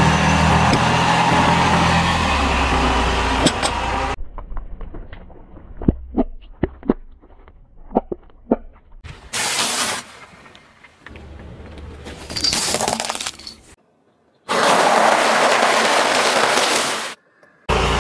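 A car's engine running as a tyre rolls onto the load, followed by a quick series of sharp cracks and crunches as something brittle breaks under the tyre. Then come short stretches of noisier crushing and rolling sounds, separated by abrupt cuts.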